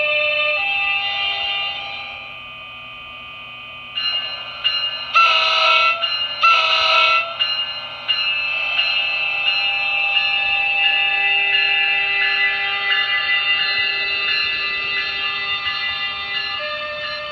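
ESU LokSound decoder in an HO-scale NJ Transit model train playing electric-locomotive running sounds through its tiny speaker: a steady electronic whine of several pitched tones. Two horn blasts sound at about five and six and a half seconds in.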